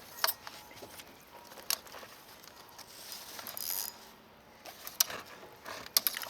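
A few scattered sharp clicks and light knocks of small hard objects, with a short hiss a little past halfway.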